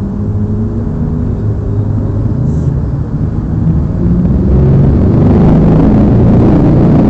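Low rumble of city street noise, growing louder about four and a half seconds in.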